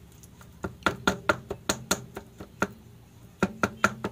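Kitchen knife chopping ripe saba bananas, a quick run of sharp taps as the blade strikes the board beneath, roughly four to five a second, with a short pause a little past halfway.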